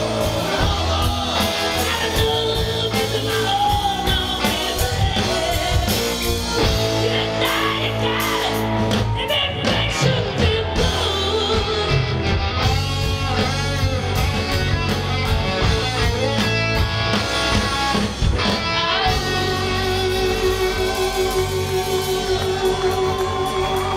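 Live rock band playing: female lead vocal over electric guitars, bass and drums. A long held note with vibrato comes in about three-quarters of the way through.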